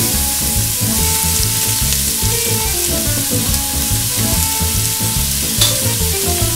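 Diced onion sizzling steadily in hot olive oil in a stockpot.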